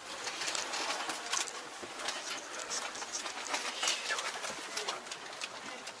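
Scattered clicks and scratchy rustling from a handheld camera being moved around inside a parked tractor's cab, with no engine running.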